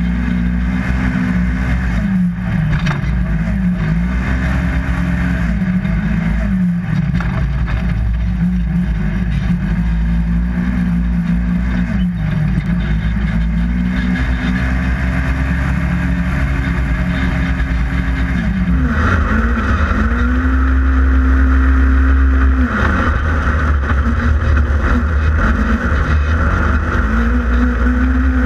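Polaris RZR XP 1000 side-by-side's twin-cylinder engine working hard under racing throttle: its pitch climbs, holds high, then dips and climbs again over and over. About two-thirds of the way through it gets louder, with an added rushing noise.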